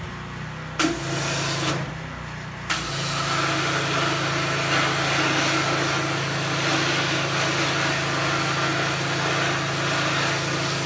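High-pressure hot-water washer (3,500 psi) with a needle-nose wand spraying into the water jackets of a 1956 Lincoln V8 block, flushing out decades of built-up scale and debris. The washer's motor hums steadily while the spray hisses, in a short burst about a second in and then continuously from a few seconds in.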